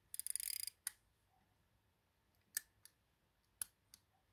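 Small sharp clicks from an antique silver-cased chronograph pocket watch being handled: a fast run of clicks right at the start, a single click just before a second in, then two pairs of clicks later on.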